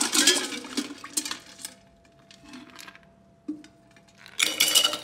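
Metal ice scoop digging and rattling through ice cubes in a stainless steel bowl. Near the end, a scoop of ice cubes is tipped into a stainless steel cocktail shaker with a loud clatter.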